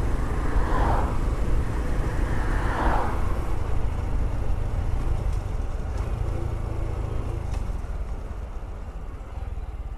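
Honda CT125 Hunter Cub's single-cylinder engine running with wind noise from riding, both getting quieter as the bike slows down.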